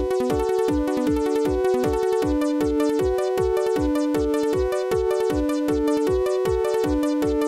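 Electronic music: synthesizer chords and melody over a steady kick-drum beat.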